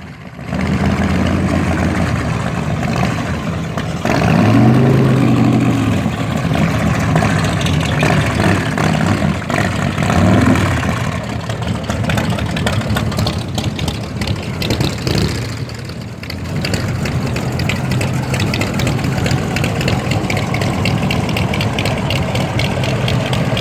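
Classic car engines running, with one engine revving up and back down about four seconds in and again around ten seconds in.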